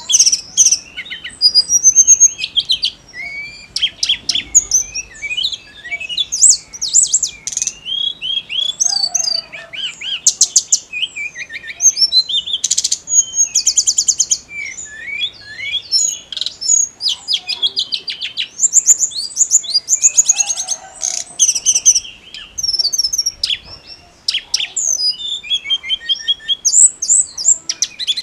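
Tledekan gunung (hill blue flycatcher) singing a long run of varied whistled phrases and rapid trills, with only brief pauses. This is the 'gacor' song used as masteran to stir magpie robins and white-rumped shamas.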